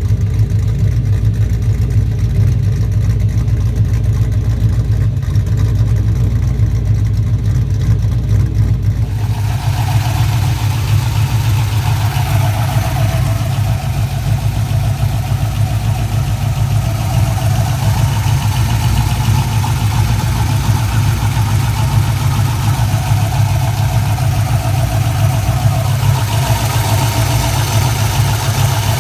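LS1 5.7-litre V8 idling steadily. About ten seconds in the sound turns brighter and hissier, with a higher band near 700 Hz over the low hum.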